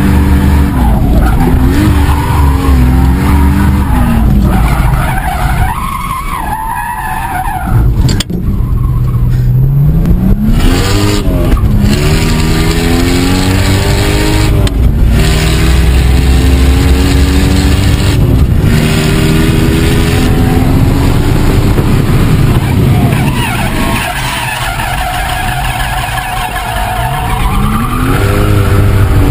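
Turbocharged drift car's engine heard from inside the cabin, revving hard with the pitch climbing and falling as the car slides, with tyres squealing. Twice the engine note drops away for a few seconds while the squeal carries on, then the revs climb back.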